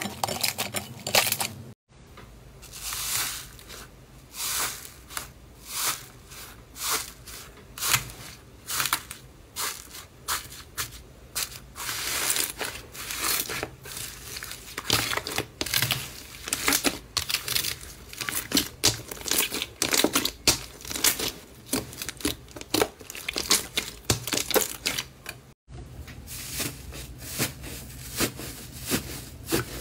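Hands squeezing, stretching and pressing thick slime, making a dense, irregular run of small crackles, pops and squelches, several a second. It cuts out briefly twice, about two seconds in and near the end.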